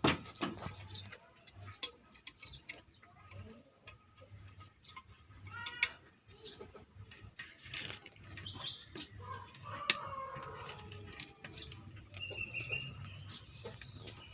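Chickens clucking now and then, among scattered sharp clicks and knocks.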